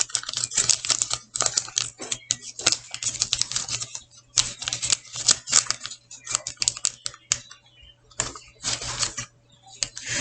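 Small plastic wrapper crackling and crinkling in the hands as it is opened: rapid, irregular clicks with a few short pauses.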